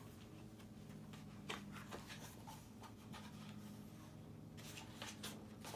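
Soft paper rustles and light handling noises as the pages of a hardcover picture book are turned, a few about a second and a half in and more near the end, over a low steady hum.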